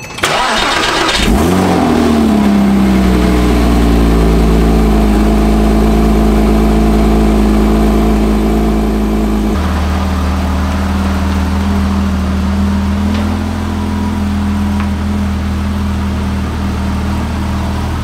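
Porsche 987 Boxster's flat-six cold-started: a short spell of cranking on the starter, then the engine catches at a fast idle that falls in pitch over a couple of seconds and settles into a steady cold idle. About halfway through the tone changes abruptly, and the idle runs on steadily.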